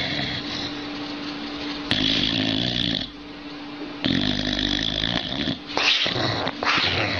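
A sleeping dog snoring, a snore every second or two, the longer ones with a buzzing rattle.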